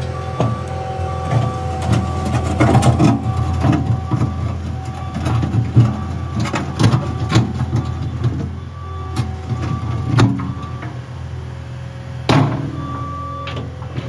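Caterpillar 236 skid steer's diesel engine running steadily while its steel bucket scrapes and pushes dirt, with repeated clanks and rattles from the bucket and loader arms and one sharp clank near the end.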